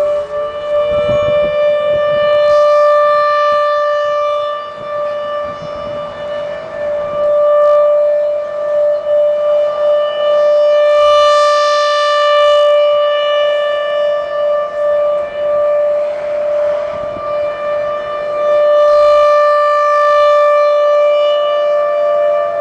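Federal Signal Thunderbolt outdoor warning siren sounding a steady wail for a monthly tornado-siren test: one held tone that swells and fades in loudness every several seconds as the rotating siren head turns.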